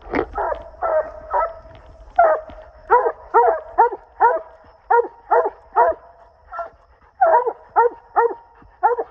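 Two coonhounds barking treed at the base of a tree: a steady run of short, loud barks, about two to three a second, one dog's barks overlapping the other's, with a brief lull about seven seconds in. It is the tree bark that tells the hunters the hounds have their quarry up the tree.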